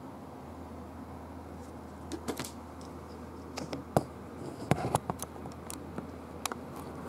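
Hands handling a cardboard game box and its paper rules booklet: scattered light taps, clicks and brief rustles, the sharpest a few seconds in, over a steady low hum.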